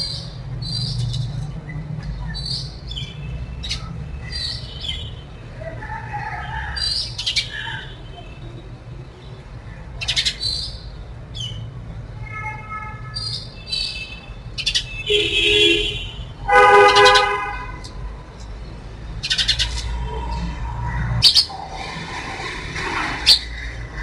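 Sparrows chirping in short, repeated calls throughout. A vehicle horn sounds twice about two-thirds of the way in, a short blast and then a longer, louder one, over a low traffic rumble.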